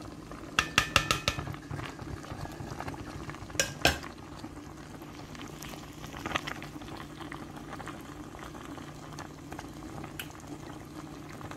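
Chicken, onions and spices sizzling and bubbling in oil in a pot over medium heat. A quick cluster of sharp metallic clinks comes about a second in, two more near four seconds, and a few lighter ticks follow.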